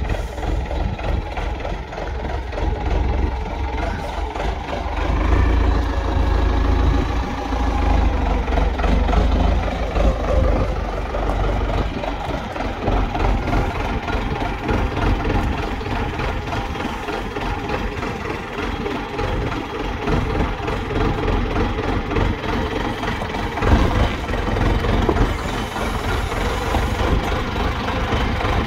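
Forklift engine running steadily as the forklift is driven.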